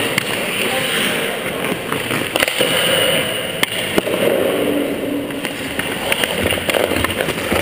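Hockey skate blades scraping and carving on rink ice, a continuous gritty hiss broken by scattered sharp clacks.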